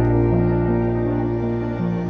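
Ambient background music: held, sustained chords over a steady low bass note, with the notes above shifting a couple of times.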